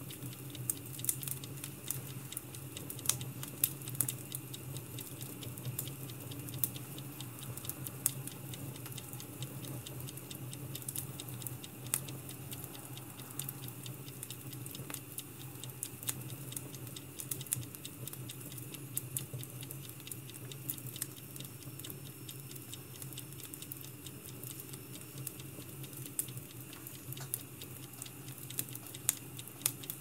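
Burning firewood crackling: irregular sharp pops and snaps over a steady low hum.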